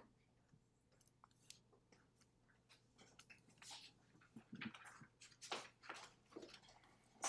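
Near silence: faint room tone with a low hum and a few soft, scattered clicks and rustles.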